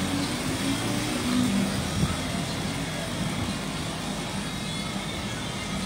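Shrimp-pond aerators running: a steady mechanical hum over the wash of churning water.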